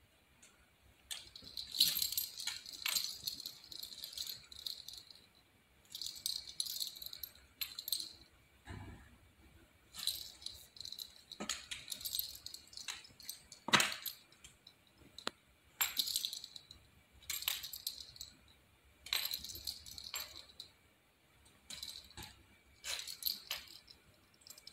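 A small dog's collar tags jingling, with claws clicking on a hardwood floor, in short bursts every second or two as the dog moves about and sniffs.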